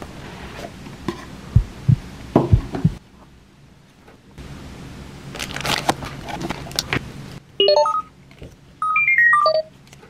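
Cardboard gift box and plastic-wrapped pouch being handled: a few sharp knocks, then crinkling of the plastic wrap. Near the end come two quick runs of electronic beeping notes stepping in pitch, like a dialing-tone sound effect; these are the loudest sounds.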